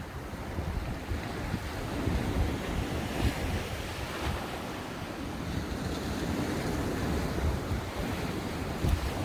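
Ocean waves breaking and washing up a sandy beach, a continuous surf noise that swells between about two and five seconds in, with wind buffeting the microphone.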